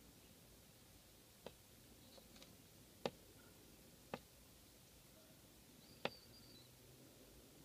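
Young chickens pecking and bumping at the camera: four sharp taps spread over several seconds, with a few faint, high, short peeps.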